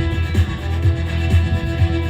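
Recorded rock music with guitar and a steady beat about twice a second, played loud over a speaker.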